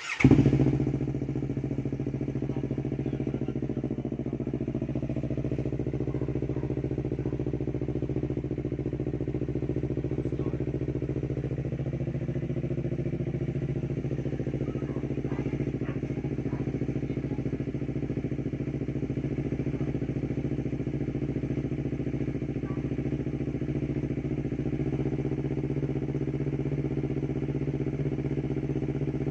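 Yamaha R3's parallel-twin engine cold-starting through an Akrapovič aftermarket muffler with resonator: it fires at once with a brief loud burst, then settles into a steady idle.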